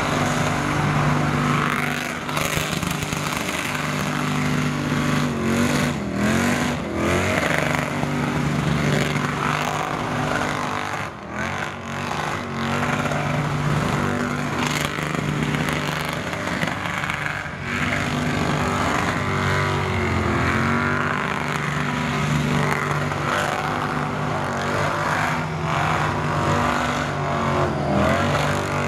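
Blown big-block V8 in a Mazda E2200 truck revving hard through a long burnout, its pitch dipping and climbing again and again as the throttle is worked, over the hiss of the spinning rear tyres.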